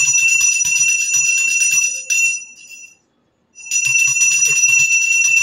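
Puja hand bell rung rapidly and continuously during aarti, a fast, even, high ringing. It breaks off for about half a second a little after halfway, then picks up again.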